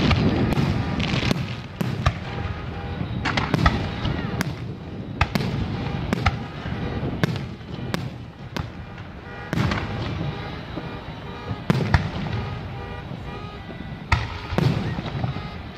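Aerial fireworks shells bursting in the sky: a string of sharp bangs, roughly one a second at irregular spacing, over music playing in the background.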